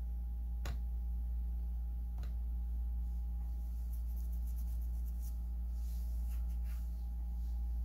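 Steady low electrical hum with a few faint steady tones above it, and two sharp clicks in the first couple of seconds as the laptop's touchpad is clicked to shut it down.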